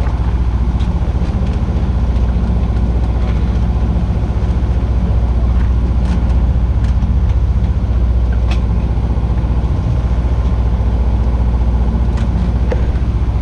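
An engine aboard a small fishing boat running steadily at idle: a loud, even low drone, with a few short knocks on the deck.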